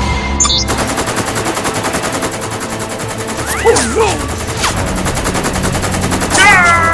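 Rapid automatic gunfire, a fast even rattle of shots, as a cartoon sound effect.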